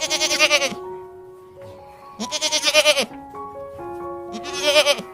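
Goat bleating three times, about two seconds apart, each call quavering, with background music.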